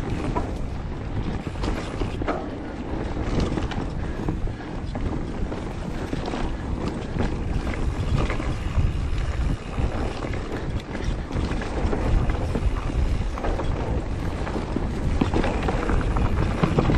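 Mountain bike riding fast down a dirt forest trail: a steady rumble of tyres on the ground with the bike's frame and parts rattling over bumps, and wind buffeting the microphone.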